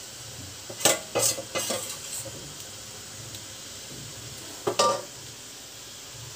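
Metal spoon scraping and clinking against a stainless-steel pot while scooping out batter, with three sharp ringing clinks about a second in and two more near five seconds. A steady faint hiss underneath.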